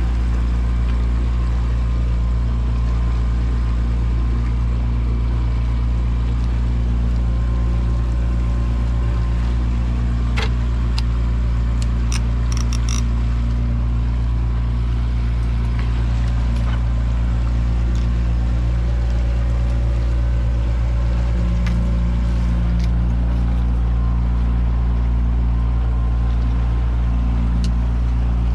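Boat motor running steadily at trolling speed, a constant low hum. A few short clicks and knocks around the middle.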